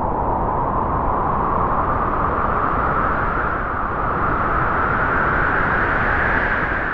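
Wind blowing in a sustained gust: a steady rushing noise with a whistling edge that slowly rises in pitch.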